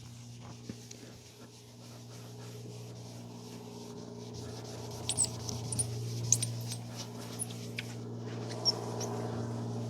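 A cloth being rubbed by hand over a plastic headlight lens with polish, with short high squeaks of the cloth on the plastic in the second half. A steady low hum runs underneath.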